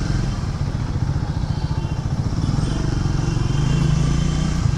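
Triumph Speed 400's single-cylinder engine running while the bike is ridden, with road and wind noise. The engine note rises slightly near the end.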